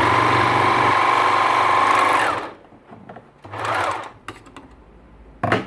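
Semco coverstitch machine running fast for about two and a half seconds as stretch fabric is run through it, with a steady high whine over a low motor hum. It runs again briefly a second or so later, and a sharp click follows near the end.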